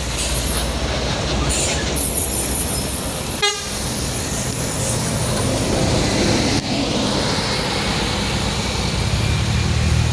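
Heavy trucks and buses running up a steep incline, with a vehicle horn tooting. A deeper engine gets louder near the end.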